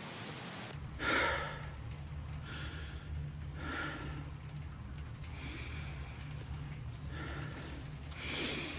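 A man breathing heavily: about six loud, drawn breaths spaced a second or two apart, the first about a second in and another strong one near the end. Under them runs a low steady hum.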